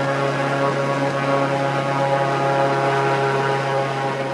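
Airboat's engine and air propeller running steadily under way, a constant loud hum.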